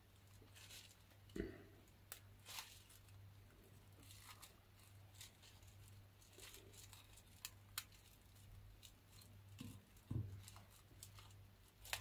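Plastic cling film being smoothed and pressed down over a bowl by hand: faint, scattered crinkles and small crackles, a few seconds apart.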